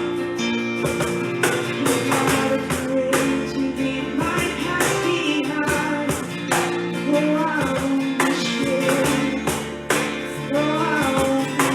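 Worship song: a strummed acoustic guitar keeping a steady rhythm, with a voice singing the melody over it.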